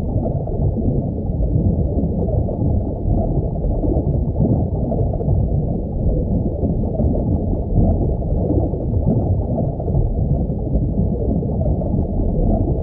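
Underwater ambience sound effect: a steady, deep, muffled rumble of water.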